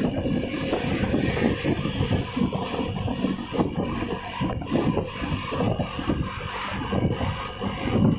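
Rough, crackling low rumble of a bus's 'ngorok' (snoring) modified exhaust on the road, continuous and uneven.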